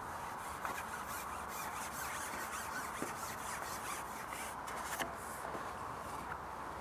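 A carbon fishing pole being handled and pushed back out over the water, giving a run of short scratchy rubbing sounds with a few sharp clicks, over a steady background hiss.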